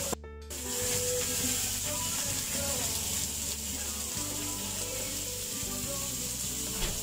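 Beef steaks and vegetables sizzling in a ridged grill pan as a steady hiss, with background music. The sound briefly cuts out just after the start.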